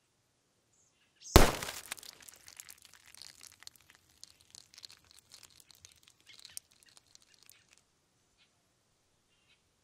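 A sudden loud crash about a second in, followed by several seconds of scattered crackling and tinkling debris that thins out and stops.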